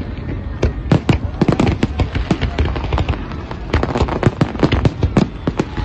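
Fireworks display: many sharp bangs in quick, irregular succession over a continuous low rumble.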